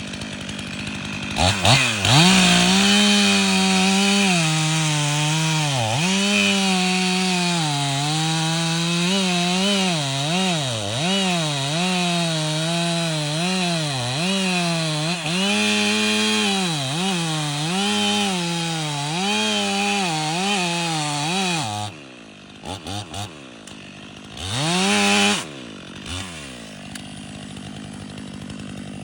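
Stihl 500i fuel-injected two-stroke chainsaw cutting wood at full throttle, its pitch dipping and recovering every second or so as the chain loads in the cut. Near the end it drops back to idle, revs once briefly, then idles again.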